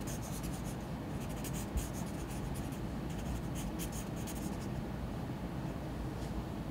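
A pen scratching across paper in a run of quick short strokes, drawing small marks. The strokes thin out after about four and a half seconds. Under it runs a steady low room hum.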